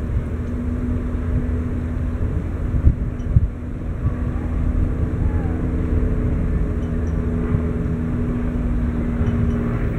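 Steady low engine rumble with a constant hum, and two low thumps about three seconds in.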